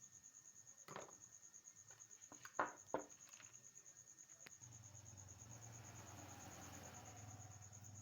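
A cricket trilling faintly and steadily, a fast even pulsing at one high pitch. A few light clicks and taps come about one and three seconds in, and a low hum enters about halfway through.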